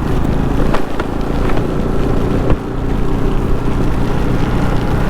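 Motorcycle engine running steadily while riding, with wind noise on the microphone and a few sharp knocks in the first half.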